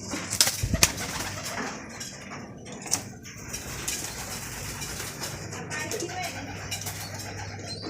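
Homing pigeons cooing, with a few sharp knocks, the loudest about half a second in, over a steady low hum.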